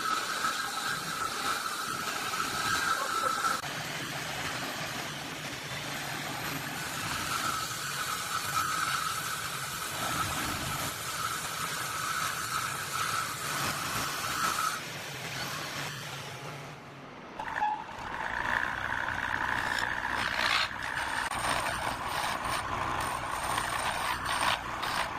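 Handheld electric drill whining steadily as it bores into a solid wood table top, in two spells. After a short lull, an electric wood lathe runs with a higher two-pitched whine while a chisel scrapes and knocks against the turning spindle.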